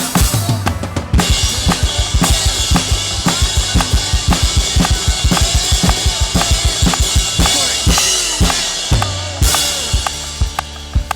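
Drum kit played along with a worship-song backing track: rapid, even kick-drum strokes with snare hits. Cymbals ring steadily from about a second in and drop away near the end.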